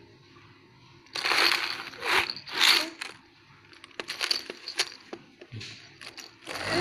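Hard plastic toy being handled and shaken, rattling and clattering in three quick bursts starting about a second in, then a few sharp clicks and another burst of rattling near the end.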